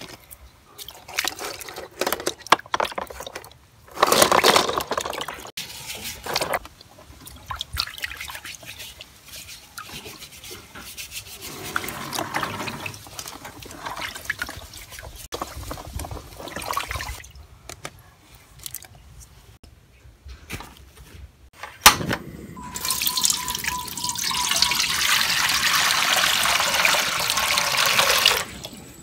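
Water splashing and sloshing as eggs are rinsed by hand in a plastic basin of water. Near the end a steady stream of water pours into a metal pot for several seconds, then stops abruptly.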